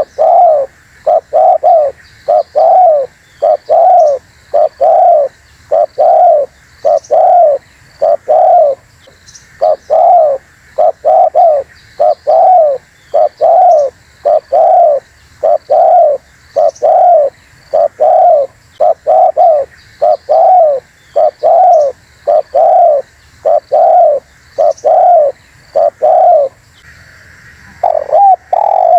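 Spotted dove (terkukur) cooing: a long run of loud, evenly repeated coos, each note arching up and down in pitch, with a short pause near the end before the calling resumes.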